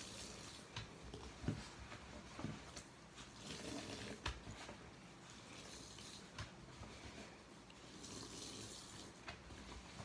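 Wet, sudsy sponge being squeezed and worked: soft squishing of cleaning water, with small pops and drips. Hissy squelches come in three swells, with scattered sharp clicks, the sharpest about four seconds in.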